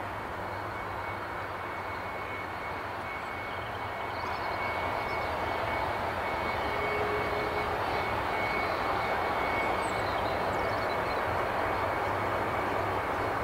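Airliner jet engine running, a steady rumble with a thin high whine, growing gradually louder about a third of the way in.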